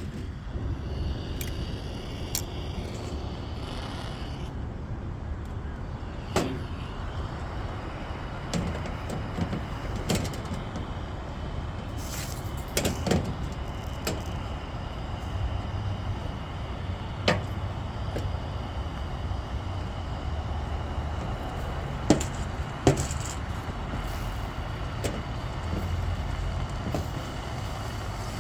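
Sharp taps and knocks on copper half-round gutter during soldering work, a handful spread over the stretch, over a steady low rumble.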